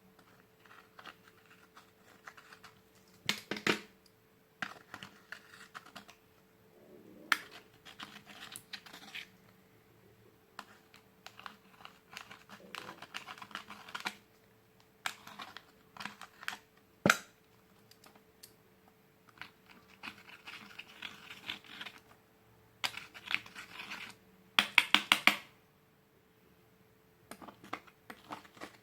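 Glitter slime being handled and pressed, making irregular sticky clicks and crackles, with a quick run of sharp clicks about twenty-five seconds in. A faint steady hum sits underneath.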